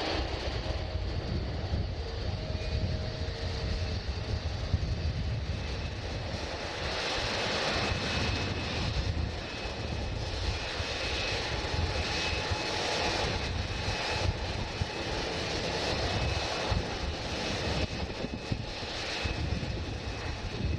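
Jet airliner engines running: a continuous rumble with a faint high whine that grows stronger about a third of the way in.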